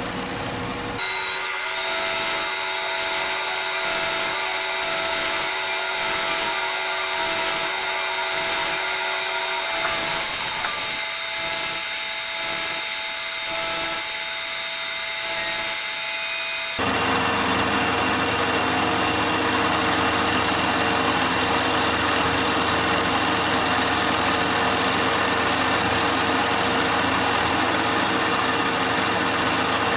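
Milling machine cutting a metal block with an end mill: the spindle and cutter run steadily, with a hiss and a few held tones. About 17 seconds in, the sound changes abruptly to a fuller, deeper steady machine running.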